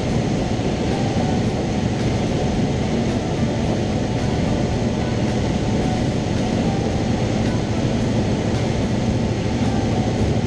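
Cessna 172's piston engine and propeller running steadily in cruise flight, a constant drone heard inside the cabin.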